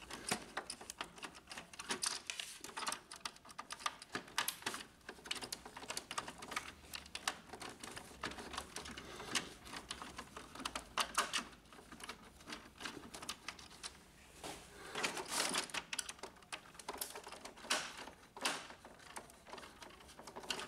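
Small screwdriver backing screws out of a plastic printer control panel: irregular light clicks and scrapes of the metal tip in the screw heads, with the plastic housing knocking as it is handled.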